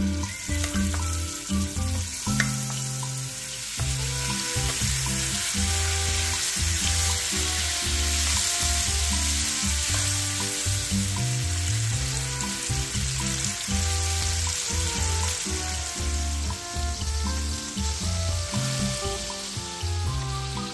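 Chicken thigh pieces sizzling as they fry in hot oil in a pan, stirred now and then with a wooden spoon. Background music with a bass line plays underneath.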